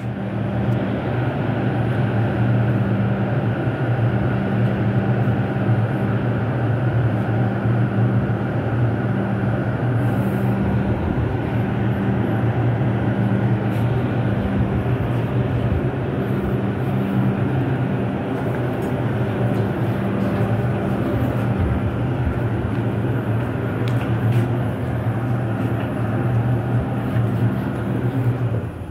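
New York City Subway R142 train rolling slowly past: a steady rumble of wheels on rail with a low hum, easing off at the very end.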